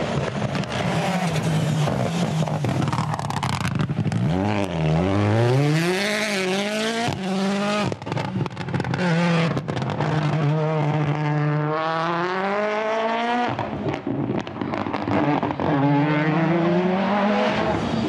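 Ford Puma Rally1 rally car's turbocharged 1.6-litre four-cylinder engine revving hard under full throttle. Its pitch climbs through the gears and drops at each upshift, in three separate pulls.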